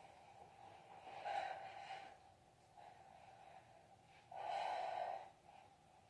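Two faint, short breaths, one about a second in and one near the end, from a woman exercising.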